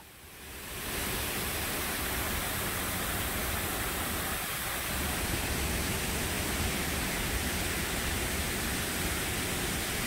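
Steady rushing of large pump-fed artificial waterfalls, water pouring down rock faces into a pool; it fades in over the first second.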